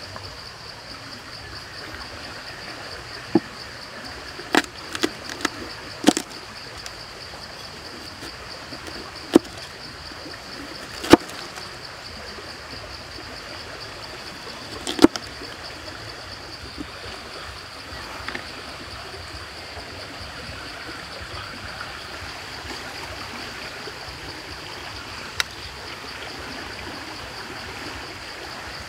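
Heavy steel cleaver chopping a peeled carrot on a banana leaf: a scattering of sharp single chops, several close together in the first few seconds, then a few spaced out, the last one a few seconds before the end. Under them runs a steady outdoor hiss with a high, even whir.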